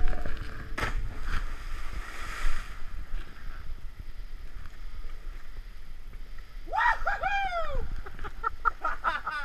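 Water splashing and gurgling, with a burst of splashing about two seconds in. A person's high yell rises and falls about seven seconds in, and quick voices follow near the end.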